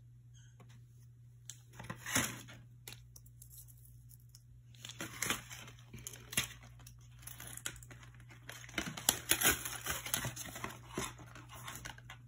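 Crinkling of card-pack packaging and rustling of Pokémon trading cards being handled, in short irregular bursts, busiest about two seconds in, around the middle and again toward the end.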